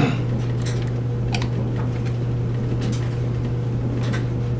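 A steady low machine hum with a handful of light clicks and knocks, from things being handled at a washing machine.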